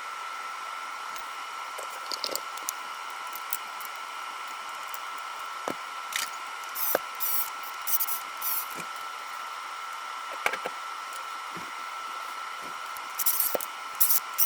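Steady fan hiss with a constant high whine, over which small clicks, taps and short plastic rustles of hands handling a battery pack and tools come and go, busiest about two seconds in, in the middle and near the end.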